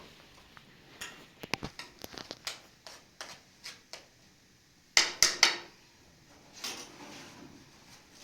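A string of light clicks and knocks from objects being handled, then a louder clatter of about three knocks close together around five seconds in.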